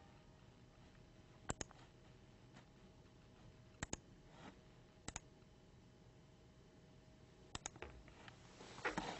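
Computer mouse button clicking: four quick double clicks, each pair a press and release, spaced one to two and a half seconds apart over a faint steady hum. A short louder burst of rustling noise comes near the end.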